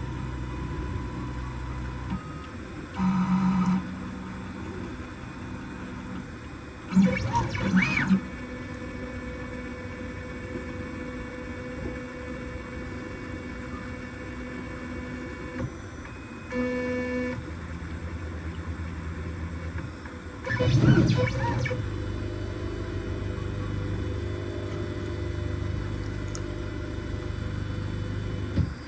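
Onefinity CNC router's stepper motors whining as the gantry jogs the bit through an automatic touch-off probing cycle. The pitch changes in steps as the moves change, with a few short louder moves along the way.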